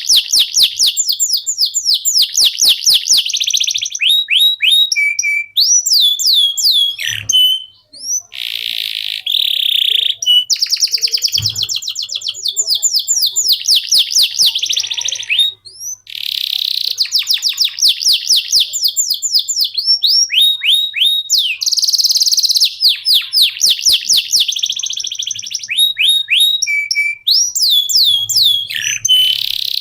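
Male domestic canary of the long-singing 'loper' type singing: fast trills of rapidly repeated sweeping notes and rolls, with short pauses about eight and sixteen seconds in.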